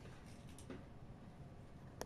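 Faint light clicks of keys being handled, a couple about half a second in and a sharper one at the end, over near-silent room tone.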